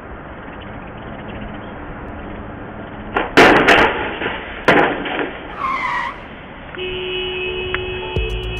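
A travel trailer's roof hits a low steel railroad bridge: over steady traffic noise comes a loud crash a little past three seconds in, then a second smaller crash about a second later, as the roof is torn off.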